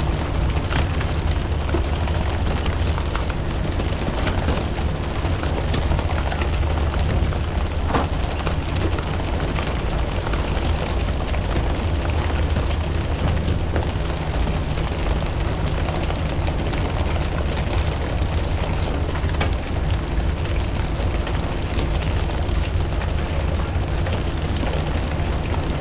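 Fishing boat's engine running steadily under a constant loud rushing noise, with a few faint clicks and knocks.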